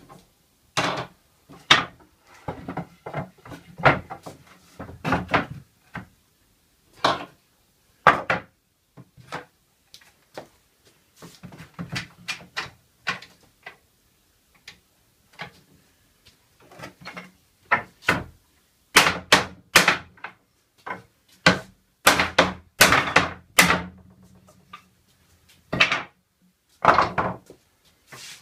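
Pallet-wood slats and a wooden frame knocking and clattering as they are handled, shifted and set down on a workbench: irregular wooden clunks in clusters, densest and loudest about two-thirds of the way through.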